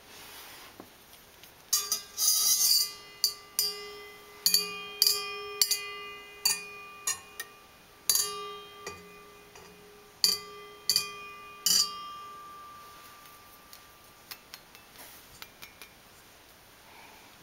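KitchenAid stand mixer's stainless steel bowl struck over and over with the wire whip attachment, each strike ringing on like a bell in several steady tones. About a dozen strikes, some in quick pairs, with a brief rattling scrape about two seconds in, then only light ticks near the end.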